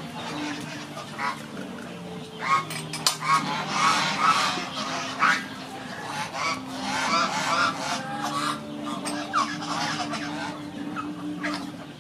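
Domestic fowl honking, goose-like, several calls in quick runs, heaviest in the first half, over a steady low drone.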